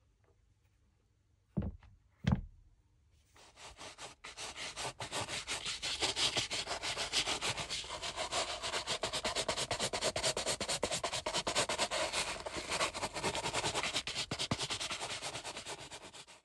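Two soft thumps, then rapid back-and-forth rubbing strokes on a shoe, many quick strokes a second, fading in about three seconds in and cutting away at the end.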